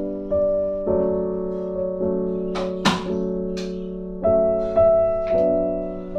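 Slow background piano music, single notes and chords struck one after another and left to ring. A few sharp clicks or clinks cut in about three seconds in, and twice more near five seconds.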